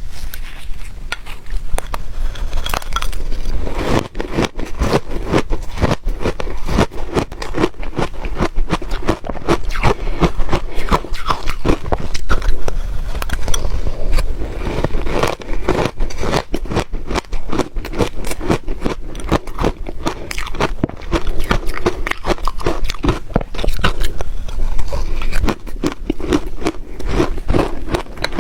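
Close-miked crunching and chewing of ice: a dense run of sharp cracks and crackles, with scraping in between.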